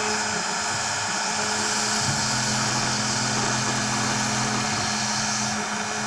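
OneFinity CNC router cutting foam board: the spindle motor runs with a steady high whine, and low stepper-motor tones start and stop as the axes move, shifting about two seconds in and again near five seconds.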